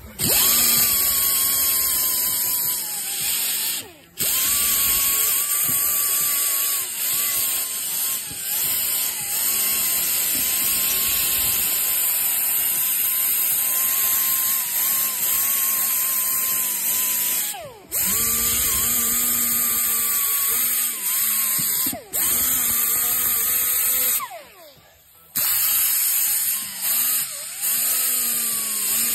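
Pneumatic die grinder spinning an abrasive attachment against the rusted wheel-bearing bore of a steering knuckle, grinding the corrosion off. It is a steady high whine with air hiss that wavers in pitch as it bites, cutting out briefly four times.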